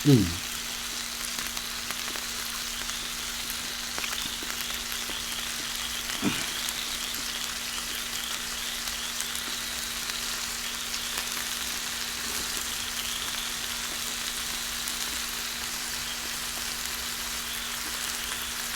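Steady crackling hiss like food frying in a pan, over a faint steady hum, with a short low downward-sliding sound at the very start and again about six seconds in.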